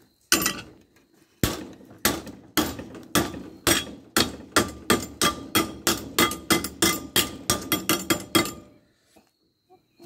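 A hammer beating on a metal pipe to bend it, about twenty blows each with a short metallic ring. The blows come slowly at first, then pick up to about three a second, and stop near the end.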